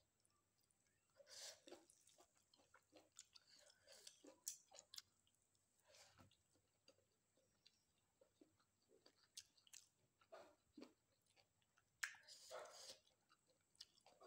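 Quiet chewing of a mouthful of rice and dry fish eaten by hand: irregular soft wet mouth clicks and small crunches, with a louder stretch of chewing about twelve seconds in.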